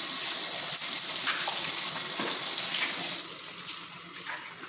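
Shower water spraying steadily onto a man's body and the tiled cubicle floor, a constant hiss that grows quieter over the last second or so.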